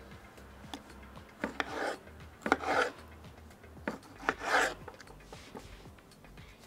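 Kitchen knife cutting yellow tomatoes on a cutting board: three cutting strokes, each a sharp knock of the blade on the board followed by a short rasp through the skin and flesh.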